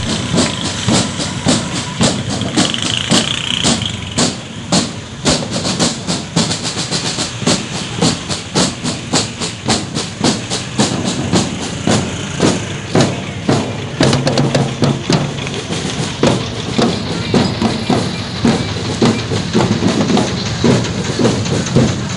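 Drums beating a steady march rhythm, about two to three strokes a second, over the running engines of passing vehicles.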